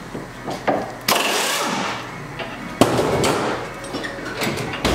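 Pneumatic impact wrench fired in two short bursts of about a second each, a little after one second in and again near three seconds, with hissing air. Metal clinks of hand tools on the rear suspension come in between.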